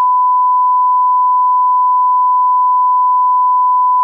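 1 kHz test tone that goes with television colour bars: a single steady beep held at one pitch and one level.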